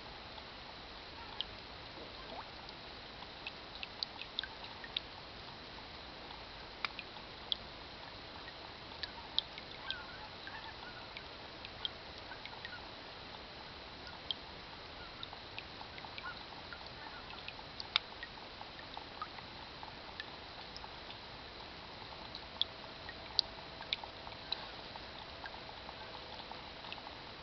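Rain falling steadily into a water barrel: a constant patter with sharp, irregular plinks of single drops landing on the water surface.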